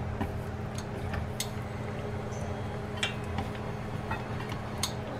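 Wooden chopsticks tapping and scraping now and then against a stainless steel pan as chicken wings simmer in a Coca-Cola sauce, a few light clicks over a steady low hum.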